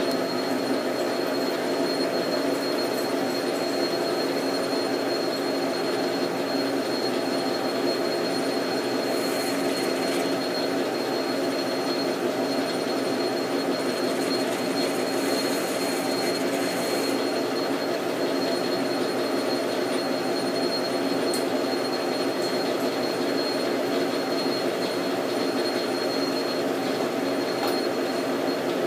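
Metal lathe running steadily with its chuck spinning: a hum of several steady tones from the drive and gearing, with a thin high whine above, while a boring bar takes a light finishing cut in the bore.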